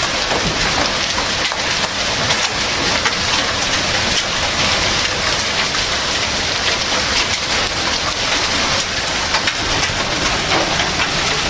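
Heavy rain and large hail falling hard: a loud, steady hiss of rain with many sharp hits of hailstones scattered through it.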